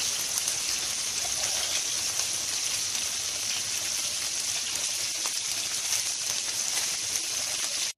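Ground-beef köfte patties frying in hot oil in a wide pan: a steady, even sizzle.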